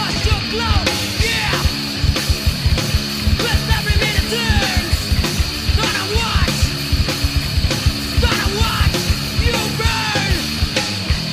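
Recorded hardcore punk song playing: dense, fast drumming under distorted electric guitar and bass.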